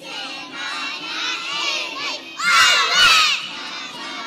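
A group of young children shouting together in many overlapping high voices, swelling to the loudest burst about two and a half seconds in.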